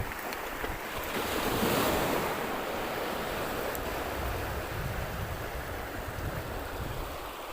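Sea waves washing up on a beach, one swell rising about a second or two in, with wind buffeting the microphone.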